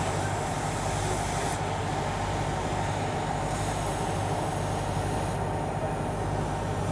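A fire engine's pump running steadily with a low hum, feeding a fire hose nozzle that sprays a wide fog of water with a hissing rush; the hiss thins twice as the spray pattern shifts.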